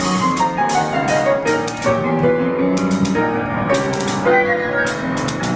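Live chamber ensemble playing, with piano among the instruments: a run of pitched notes changing every fraction of a second, and short hissing strokes recurring in groups over them.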